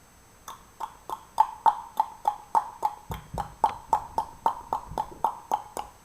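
A marker squeaking in quick back-and-forth strokes, about four a second, each a short squeak that dips in pitch, as when scribbling or colouring in a drawing.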